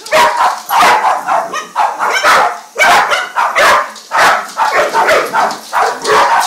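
A dog barking rapidly and repeatedly, about three barks a second, at a small remote-control toy helicopter.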